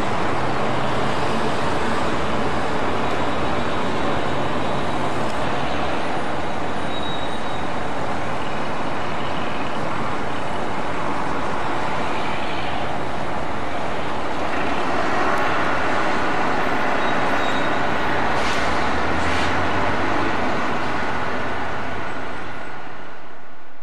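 Heavy diesel vehicle engine running steadily in a continuous rumble, the sound brightening about fifteen seconds in, with two short knocks around eighteen and nineteen seconds in.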